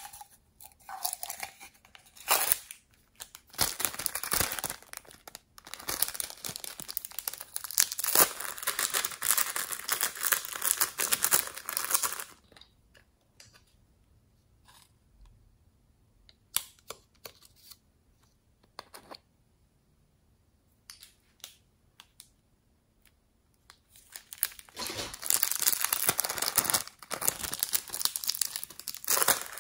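A small clear plastic packet being handled, crinkling and rustling in two long stretches: one through the first dozen seconds, another near the end. Between them there are only a few light clicks and taps.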